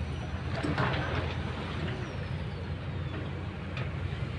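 Kobelco crawler excavator's diesel engine running steadily at idle with the arm held still, a low even hum, with a brief louder rushing noise about a second in.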